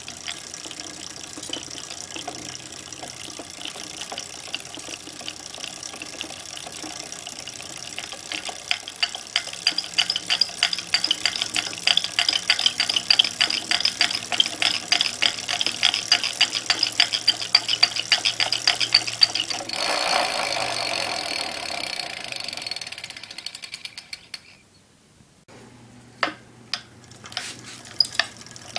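A2B Metro G2 electric bike's rear drivetrain rattling and knocking under pedaling: a fast, even run of clicks for about ten seconds, then a rushing noise that fades, and a few scattered clicks near the end. The owner suspects the stock DNP Epoch 7-speed freewheel, under-lubricated from the factory.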